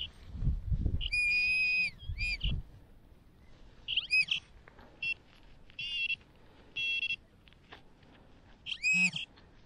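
Metal detector tones over a dug target: a held tone of about a second, then short beeps and buzzy bursts, some rising in pitch. Thuds of digging in soil over the first couple of seconds.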